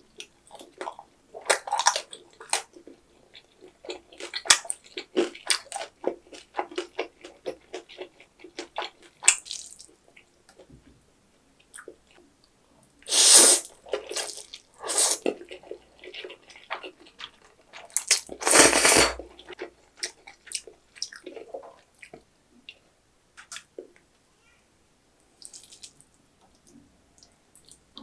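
Close-miked eating of jjajang ramen: wet chewing and quick lip smacks, broken by three loud slurps of the sauce-coated noodles in the middle, each about a second long, with quieter chewing after them.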